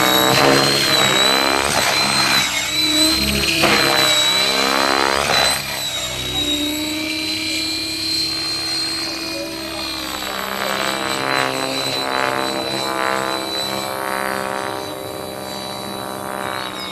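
Engine and propeller of a Kasama Srimok radio-controlled aerobatic model airplane in flight, its pitch sliding up and down as it passes and maneuvers. Loudest for the first few seconds, then somewhat fainter.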